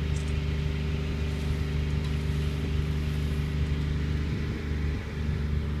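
Engine running steadily with an even hum, powering a pipe-bursting rig that pulls new HDPE pipe through buried 4-inch cast iron pipe.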